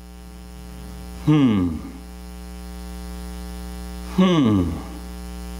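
Steady electrical mains hum with a buzz of many evenly spaced overtones. It is broken twice, about three seconds apart, by a short loud sound that falls steeply in pitch.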